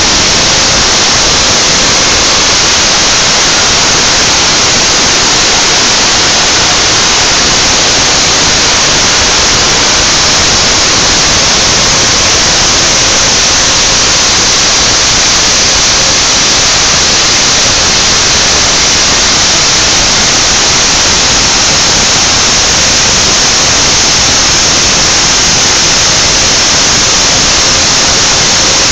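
Spindle of a homemade CNC router running while it cuts a dash face plate: a loud, steady hiss that does not change.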